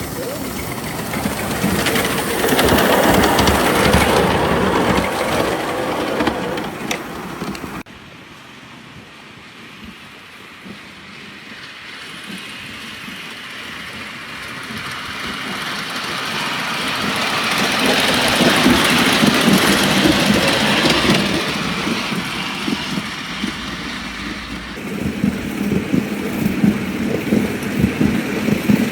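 A 5-inch gauge live steam locomotive running on a miniature railway. Its sound swells and fades as it passes, twice, with a sudden cut about eight seconds in and another near the end, after which a quick rhythmic pulsing is heard.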